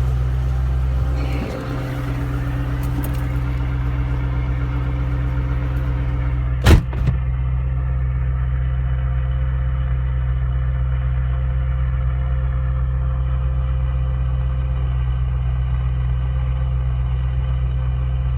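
2007 Mustang Shelby GT-H's 4.6-litre V8 idling steadily. A single sharp knock comes about seven seconds in.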